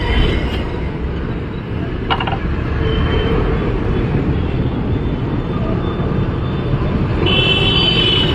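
Street traffic rumbling steadily, with one sharp knock about two seconds in and a vehicle horn sounding near the end.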